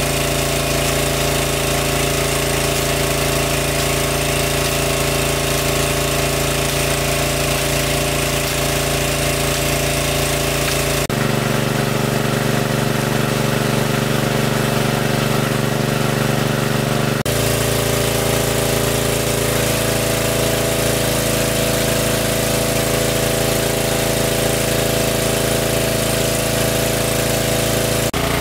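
A water pump's engine running steadily with a constant droning hum. Its tone changes abruptly twice, about eleven seconds in and again about six seconds later.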